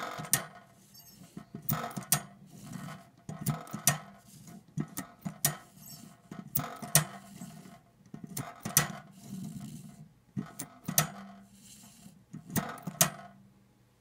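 1890 Dart wheeled addressing typewriter printing letter by letter: about nine pairs of sharp metallic clacks as the knob is pushed down and released, with a low rattle of the type wheel and wheels between strokes.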